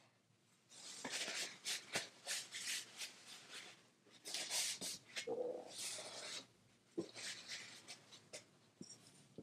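Boiled crawfish being cracked and peeled by hand: irregular short bursts of crackling and rustling shell, with a few sharp snaps.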